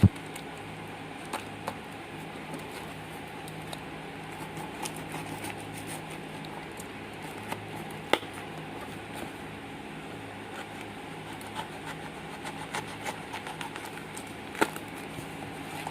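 Small clicks and handling noises of a parcel being opened by hand, with two sharper clicks about 8 and 14.5 seconds in, over a steady low hum.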